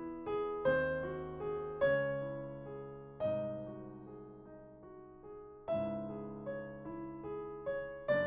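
Background piano music: slow chords and melody notes struck every second or two, each ringing on and fading.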